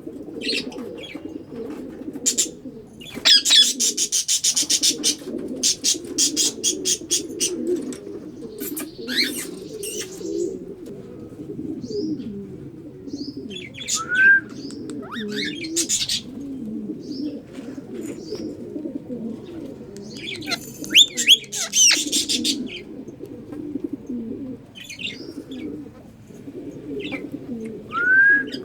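Pigeons cooing steadily throughout, with sharp high bird chirps over them, including a rapid rattling run of calls a few seconds in and short rising calls later on.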